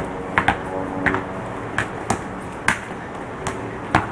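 A basketball being dribbled on a hard court: a series of sharp bounces, about two a second, unevenly spaced.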